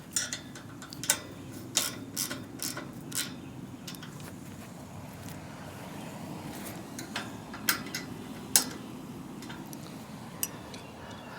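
A ratchet wrench tightening bolts on a tower section: scattered sharp metallic clicks and clinks at irregular intervals, over a steady low hum.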